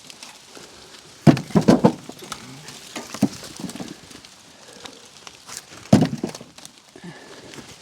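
Knocks and clunks of frozen firewood rounds being handled: a quick cluster of knocks about a second in, a single knock a couple of seconds later, and another sharp knock near six seconds.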